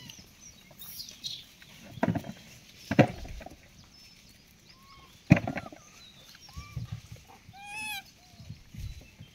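Macaques giving a few short, high, rising-and-falling coo calls, the clearest near the end, among several sharp knocks, the loudest about 3 and 5 seconds in.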